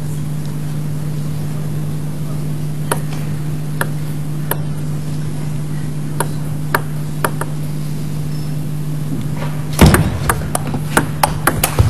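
Table tennis rally: a celluloid ping-pong ball clicking off bats and table in single sharp hits spaced about half a second to a second apart. Near the end comes a louder hit, then a quick run of sharp clicks, over a steady low hum on the recording.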